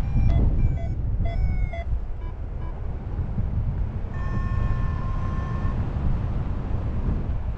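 Wind rushing over the microphone in paragliding flight, with a paragliding variometer beeping: a few short beeps at changing pitches near the start, then one longer steady tone of about a second and a half midway.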